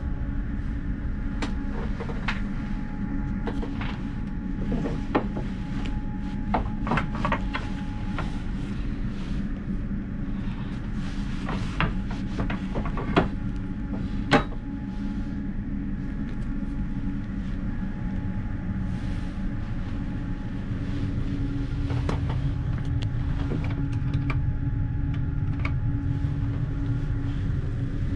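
Steady low rumble and hum of a moving SBB intercity train heard from inside the passenger carriage. Scattered clicks and knocks sit over it, the sharpest two about halfway through as the fold-out table unit between the first-class seats is pulled out.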